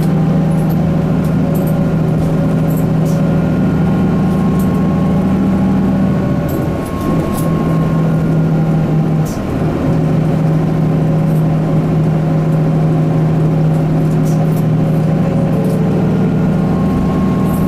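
Cabin running sound of a Mitsubishi Fuso Aero Midi MK bus (KK-MK23HH) with its SOHC 6M61 inline-six diesel pulling steadily on the road. The engine note drops briefly twice, about seven and nine seconds in, as gears are changed on its five-speed manual. Light interior rattles tick throughout.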